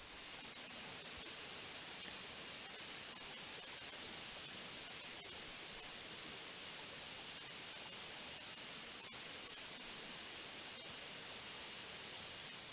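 Forest insects buzzing steadily: one thin, high, unbroken tone over a steady hiss.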